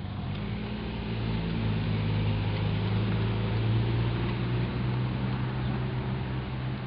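Steady low motor hum, like an engine running, swelling to its loudest about halfway through and then easing off.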